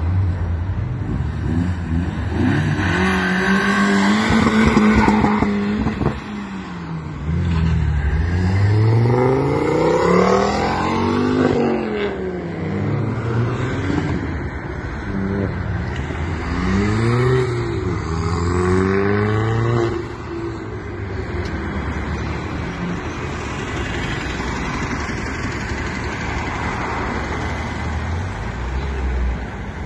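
Cars pulling away one after another, engines revving up through the gears and passing by. There are several rising runs, each broken by gear changes.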